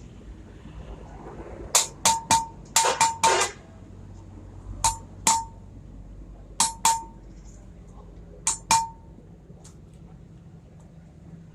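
Metal-on-metal strikes during tractor clutch plate repair work, each with a short ringing note. About a dozen sharp blows: a quick run of several in the first few seconds, then three spaced pairs.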